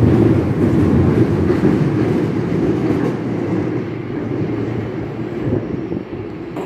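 London Underground Jubilee line 1996-stock train pulling out of the platform. Its low wheel-and-motor rumble slowly fades as the last cars clear the station.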